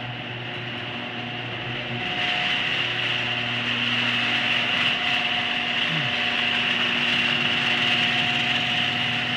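Genie screw-drive garage door opener running steadily as it raises the door, a continuous motor whine with a rattle from the screw drive, growing louder about two seconds in. It is a little noisy.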